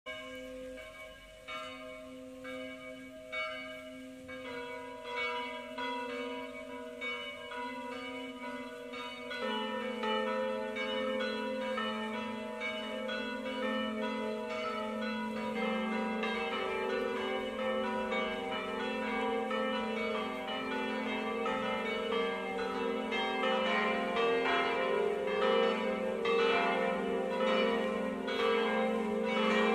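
The seven smaller bells (Re3 to Do4) of an eight-bell De Poli swinging-bell peal in C, rung as a 'distesa' that starts from the smallest bell. Lower bells join one after another, several times over, so that the peal grows fuller and louder.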